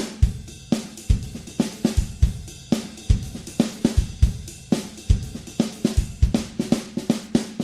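Music: a drum kit playing a steady beat on kick, snare, hi-hat and cymbals, with no other instruments.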